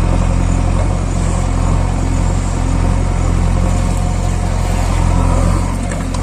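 An engine running steadily with a low, even hum, like a tractor at a slow idle.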